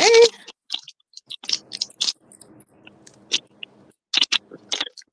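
Small paper packet crinkling and rustling as it is handled and torn open, in short, irregular crackles.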